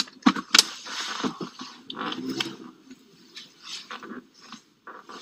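Handling noise on a mobile phone with its microphone covered by fabric: rubbing and rustling, broken by a string of sharp knocks and scrapes.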